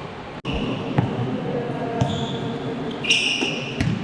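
Basketball being dribbled on a gym floor, thudding about once a second, with a few short high-pitched squeaks over it.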